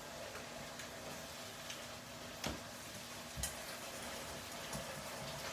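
Cooking utensils tapping and clinking on cookware, a spatula in a skillet and a whisk in a metal bowl, a few sharp clicks over a faint steady hiss. The two loudest clicks come about two and a half and three and a half seconds in.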